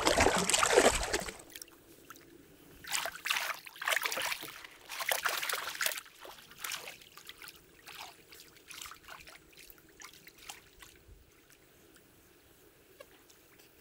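Water splashing as a dog and a person wade through a shallow river: loud splashing right at the start, then irregular bursts of sloshing steps that grow fainter and sparser.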